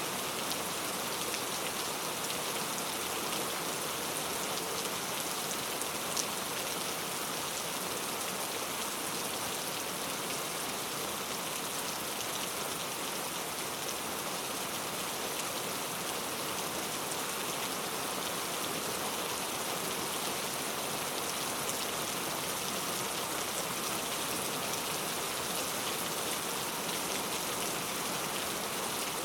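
Steady rain falling, a dense even patter of raindrops with a single sharper drop tick about six seconds in.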